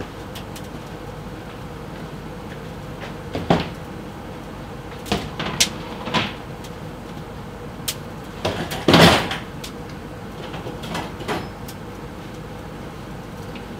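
Knocks and clatters of grill tools being fetched off to one side, with a door or cupboard shutting and tools being handled. They come as eight or so separate knocks, the loudest and longest about nine seconds in, over a steady low hum.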